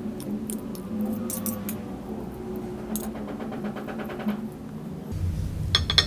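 Cutlery clinking and scraping against a plate while sambal chili sauce is stirred into fried rice vermicelli, with a quick run of scraping clicks about three seconds in. About five seconds in a low rumble starts, and a loud clatter of clinks comes near the end.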